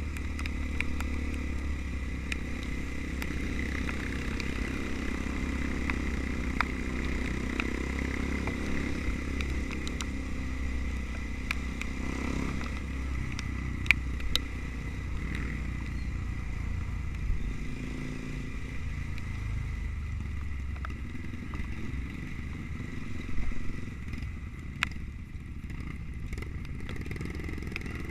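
Trail motorcycle engine running at a steady low pace, with a few sharp clicks and knocks from the bike along the way.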